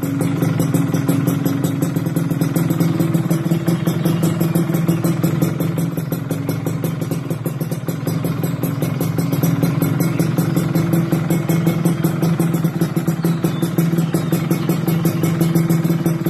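Yamaha F1ZR single-cylinder two-stroke engine idling steadily through an SMR Jogja aftermarket racing exhaust, with a fast, even chatter of exhaust pulses and no revving.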